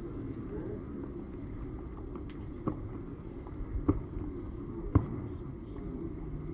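Three sharp hand claps about a second apart, over a steady low outdoor stadium hum.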